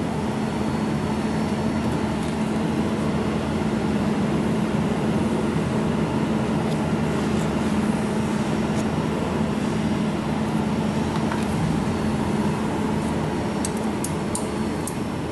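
Steady hum and fan noise of a running machine's cooling system, with a few faint ticks near the end.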